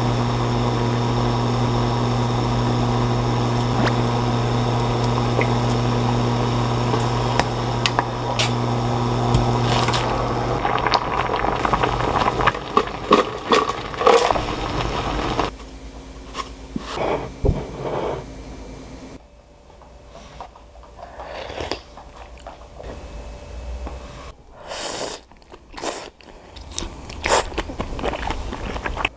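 A kitchen appliance's motor runs with a steady hum and cuts off suddenly about halfway through. Then come scattered crunching and chewing sounds of someone eating.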